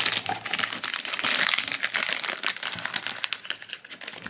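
Foil blind-box bag crinkling as hands open it and pull out the figure, dying down near the end.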